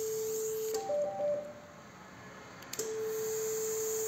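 Valleylab LS10 vessel-sealing generator sounding its steady activation tone while energy is delivered to the jaws clamped on wet gauze, with a faint hiss of steam. Under a second in it breaks off into a short, higher two-note tone marking the end of the seal cycle. Near three seconds in the steady activation tone starts again.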